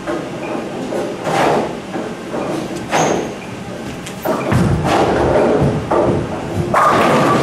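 A Hammer Dark Web bowling ball is released onto the lane about four and a half seconds in, landing with a thud and rolling away with a low rumble. About two seconds later comes a loud crash, the ball hitting the pins.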